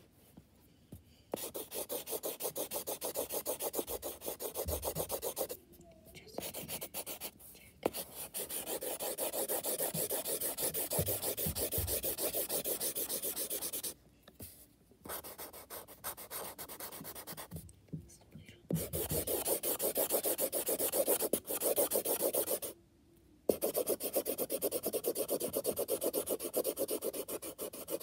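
Brown felt-tip marker scribbling quickly back and forth on paper to colour in a large area: long runs of fast rubbing strokes, broken several times by short pauses.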